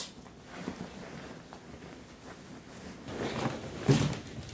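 Bedding rustling as a duvet is moved about on a bed, growing louder and ending in a short, louder burst about four seconds in as the covers are thrown off.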